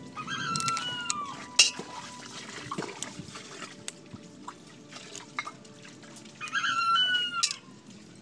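Crab shell and legs being snapped apart by hand, heard as sharp clicks and cracks, the loudest about a second and a half in. An animal calls twice over them, each call drawn out for about a second and dropping in pitch at its end.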